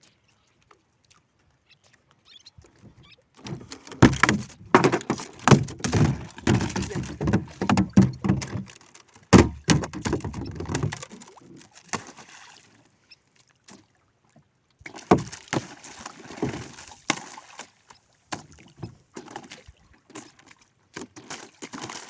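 Rapid, heavy knocks and thuds against a fishing boat's hull and deck as a just-hooked tuna is hauled in and landed. They start about three seconds in and come thick and fast for several seconds, then return more sparsely in the second half.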